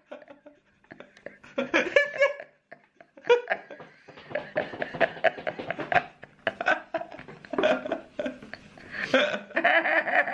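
Hard laughter in short, choppy bursts from a woman whose mouth is held wide open by a cheek retractor. It starts sparse and builds to louder, nearly continuous laughing near the end.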